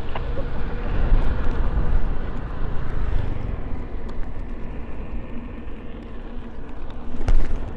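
Steady rush of wind and road noise while riding an electric unicycle along a road, with motor traffic going by. A short louder burst comes near the end.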